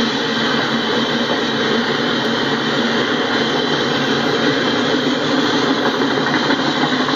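Double-stack intermodal well cars rolling past: a steady, loud rumble and hiss of steel wheels on the rails.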